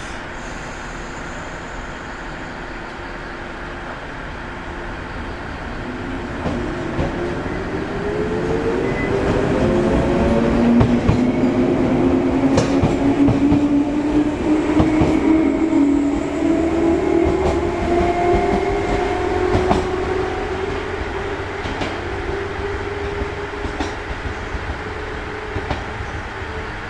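Shinano Railway 115-series electric train accelerating, its traction motors whining in several tones that climb steadily in pitch. The sound swells to its loudest in the middle and eases off near the end, with occasional clacks from the wheels.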